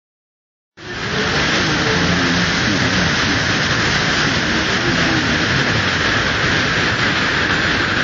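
Waterfall in heavy flow, a large volume of water pouring down a rocky chute and crashing onto rocks: a loud, steady rushing that starts about a second in.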